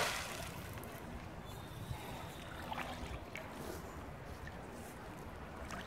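The splash of a thrown magnet-fishing magnet hitting canal water dies away at the start, followed by faint lapping water and a few small clicks as the rope is drawn back in.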